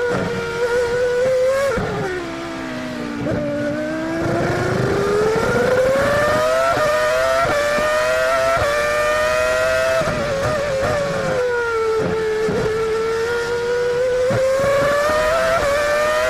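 Onboard sound of a 2002 Minardi Formula One car's Asiatech V10 at racing revs. About two seconds in the engine note falls to about half its pitch as the car slows for a corner. It then climbs in steps through quick upshifts to over 17,000 rpm, eases off briefly around twelve seconds in, and rises again.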